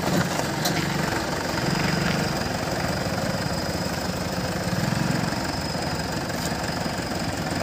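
Mahindra 575 DI tractor's four-cylinder diesel engine running at idle, its note swelling slightly twice.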